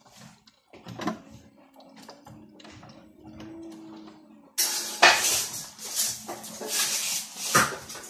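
Toy Miele W1 washing machine rinsing socks, its drum turning them through the water: small clicks and sloshing over a faint motor hum. About halfway through, a much louder hissing, splashing noise starts suddenly, with a few sharp knocks.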